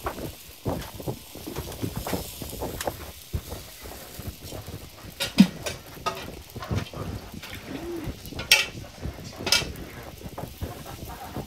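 Clatter at a food stall: scattered light clicks and knocks, with two sharper ticks past the middle and faint voices in the background.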